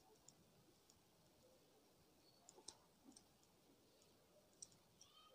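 Near silence, with a few faint clicks and scratches of a pen writing on paper.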